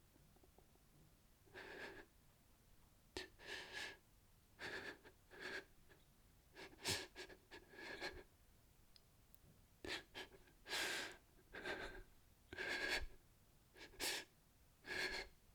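A man sobbing: a series of short, shaky breaths and voiced sobs in uneven bursts, with brief pauses between them.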